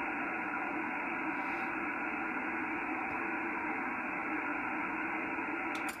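HF amateur radio receiver tuned to an empty spot on the 15-metre band in upper sideband: a steady hiss of atmospheric band noise, cut off above about 3 kHz by the receiver's filter. The noise is heavy because it is coming in on a 160-metre doublet antenna, which has more lobes of gain at this frequency. The hiss drops in level right at the end.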